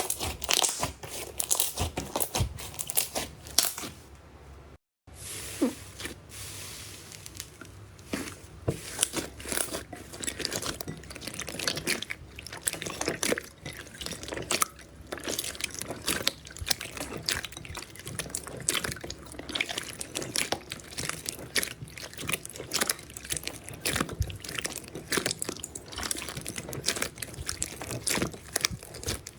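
Slime being squeezed and worked by hand, giving dense, irregular crackling pops and wet clicks, broken by a moment of silence about five seconds in.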